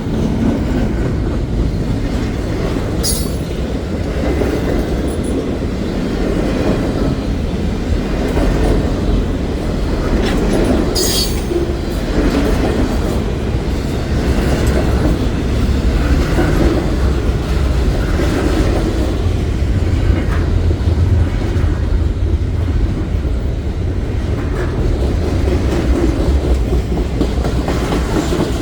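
Intermodal freight train's cars rolling steadily past, wheels clacking over the rail joints, with brief high wheel squeals about 3 and 11 seconds in.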